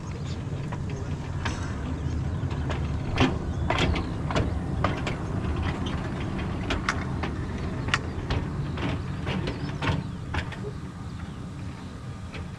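Narrow-gauge train running: a steady low rumble with irregular clicks and knocks.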